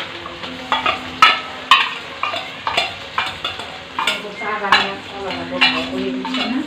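A metal spoon scraping ground spice paste out of a jar and knocking against the rim of a wok, about twice a second, over onions sizzling in hot oil; near the end the spoon starts stirring the paste into the onions.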